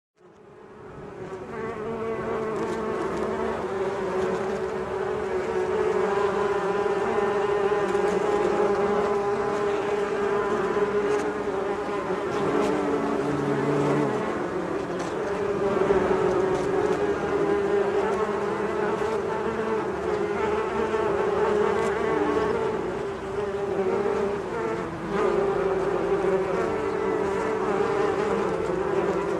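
A swarm of bees buzzing: many wingbeats blending into a dense, steady drone that fades in over the first couple of seconds and then holds.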